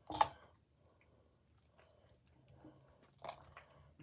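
Soft, wet slime squishing and squelching as hands knead lotion into it, with two louder squelches, one about a quarter second in and one near three seconds. The slime has gone runny from too much lotion.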